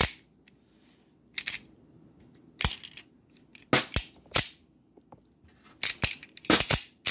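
Sharp metallic clicks and clacks of a Glock 43-pattern pistol's slide being worked by hand, stripping and chambering cartridges from the magazine with the firing pin removed, in a series of separate clicks with pauses between. The owner finds the feeding and ejection weak, the pistol prone to jamming.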